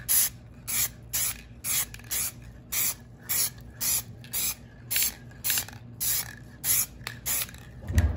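Aerosol can of Plasti Dip Green Metallic Metalizer sprayed in short hissing bursts, about two a second, with a brief low bump at the very end.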